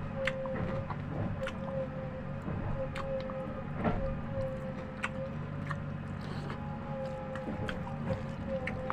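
Steady mechanical hum, a slightly wavering mid-pitched tone over a low drone, with scattered small clicks and taps, about a dozen over the stretch.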